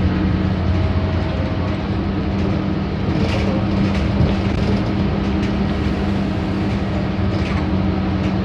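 Steady engine hum and rumble heard from inside a moving bus, with a few faint rattles about three and seven seconds in.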